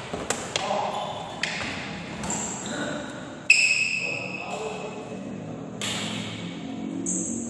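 Badminton play in a large echoing hall: a few sharp racket strikes on the shuttlecock early on, and a loud sudden squeal about three and a half seconds in, typical of sneakers on the court floor. Players' voices are heard through the rest.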